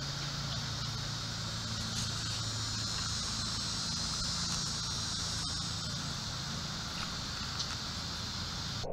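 Steady high-pitched insect chorus, with a low steady hum underneath.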